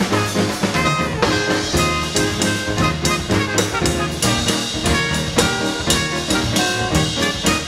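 Live dance orchestra playing an up-tempo Latin number: trumpets and trombones playing held notes over a drum kit and percussion hitting a steady beat.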